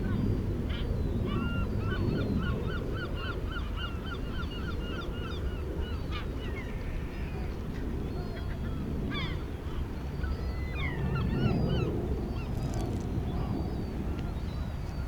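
Gulls calling, with one long run of quick repeated notes at about five a second and more scattered calls later. Underneath is a steady low rumble of the sea.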